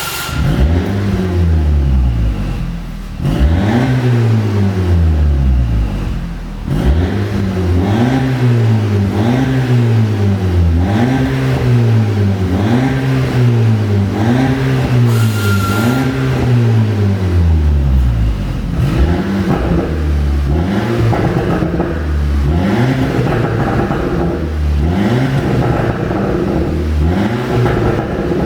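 Audi A5 2.0 TFSI turbocharged four-cylinder engine revved again and again, its pitch rising and falling about once a second, with pops and crackles from the exhaust as the revs drop, the sound of a pop-and-bang tune.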